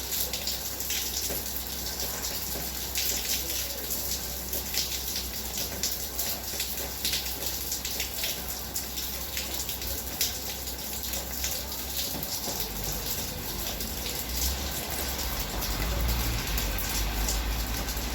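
Heavy rain falling: a steady hiss full of sharp drop splashes. A low rumble comes in during the last few seconds.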